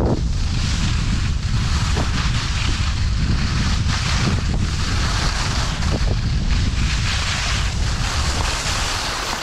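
Wind buffeting the microphone of a camera moving downhill on skis, a heavy rumble, with the hiss of skis sliding over packed snow swelling and fading.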